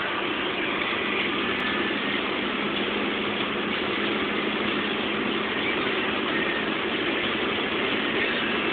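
Mercedes-Benz C-Class at high motorway speed, heard from inside the cabin: a steady, even rush of wind and tyre noise with a constant low engine hum under it.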